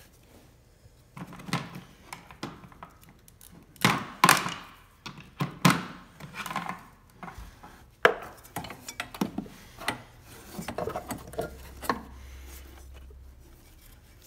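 Irregular knocks, clicks and rubbing from hands working a ribbed accessory drive belt over the engine's pulleys, with a few sharper knocks about four and eight seconds in.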